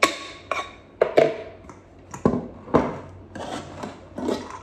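A 3-litre pressure cooker's lid being twisted and lifted off the pot: a string of metal scrapes and clanks, about seven strokes.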